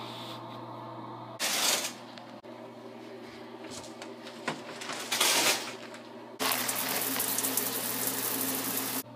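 Shower spray turned on about six and a half seconds in, running with a steady loud hiss until it stops near the end. Before it come two short swishing noises, and a steady low hum runs underneath.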